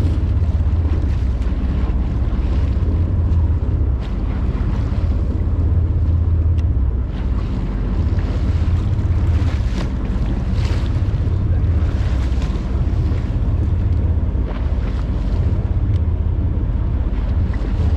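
Wind buffeting the microphone in a steady low rumble on a boat at sea, with water washing along the hull.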